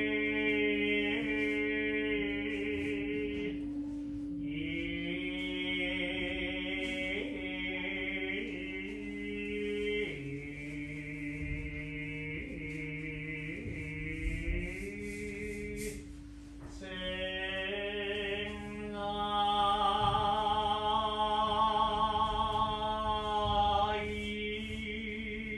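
Slow chanted singing with long held, wavering notes and gliding pitches over a steady, unbroken low drone, with brief pauses about four seconds in and again past the middle.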